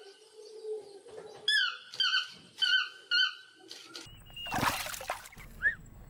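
Chestnut-mandibled toucan calling: a run of short, yelping notes that drop in pitch, mostly in quick pairs. It stops about two-thirds of the way in and gives way to a brief noisy rush of sound.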